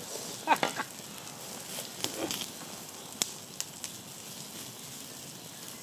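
Campfire under a spit-roasting whole hog crackling and sizzling steadily, with a couple of sharp pops a little past three seconds in.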